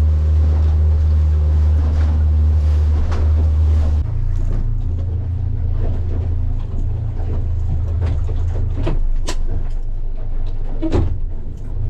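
A fishing boat's engine running with a steady low hum, its note shifting about four seconds in. A few sharp knocks sound near the end.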